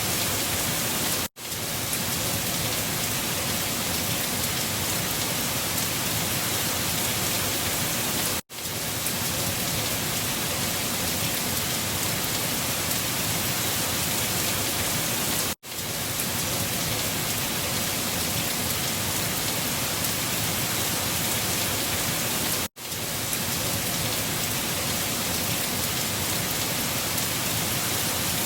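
Steady rushing storm noise, even and hissy from low to high, from a short looped recording that cuts out for an instant four times, about every seven seconds.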